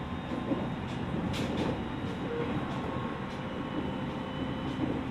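Running noise heard inside the front motor car of a JR East 701 series electric train: a steady rumble of wheels and running gear on the track. Faint steady whines come and go, and there are a few faint clicks.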